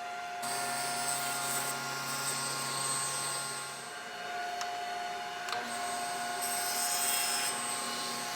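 Table saw running, its blade cutting through wood panels twice as each panel is squared on a jig.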